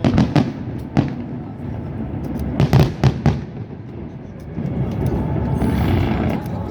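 Fireworks bursting: sharp bangs near the start and at about one second, a quick cluster of bangs around three seconds, then a denser continuous din from about four and a half seconds.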